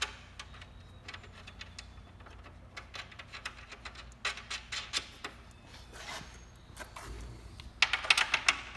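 Steel carriage bolts and nuts clinking and clicking against the hitch and plow frame as they are fitted by hand. There are scattered single clicks, then a quick, louder run of sharp metallic clicks near the end.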